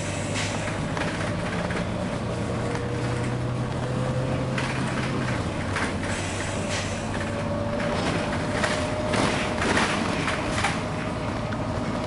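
Volvo B9TL double-decker bus heard from inside while driving: the six-cylinder diesel engine and driveline drone low and steadily, under a faint whine that slowly rises in pitch. From about halfway, a run of short knocks and rattles from the bodywork joins in.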